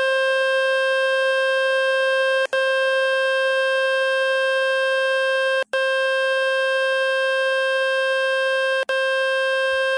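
Speaker-cleaning tone from the Fix My Speaker website: a loud, steady, buzzy electronic tone full of overtones, meant to shake water and dust out of a phone speaker. It is broken by three brief gaps, roughly every three seconds.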